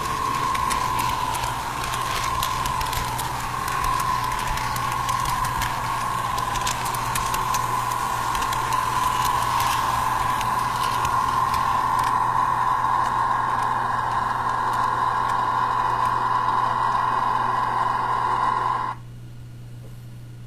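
HO scale model train running on its track, heard close up from a camera riding on it: a steady electric-motor whine that drifts slightly in pitch, over fine clicking and rattling of wheels on the rails. The whine cuts off suddenly about a second before the end, leaving a quieter hum.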